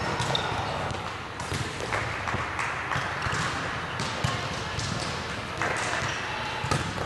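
Volleyballs being hit and bouncing on a hard indoor court: several sharp smacks spread over the seconds, in a large hall.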